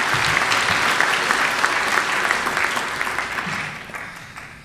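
Audience applauding, a dense patter of many hands clapping that dies away over the last second.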